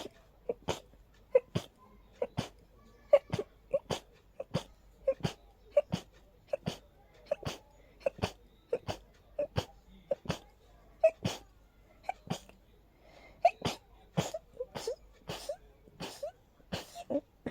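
A person's allergy sneezing fit: short, sharp sneezes following one another without a break, about one or two a second.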